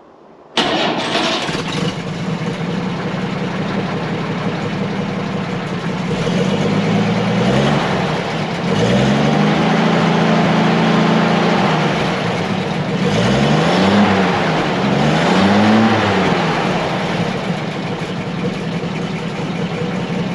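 Bedford QL truck's six-cylinder petrol engine running sweetly at a steady idle, revved up and let fall back four times from about a third of the way in, one rev held for a couple of seconds.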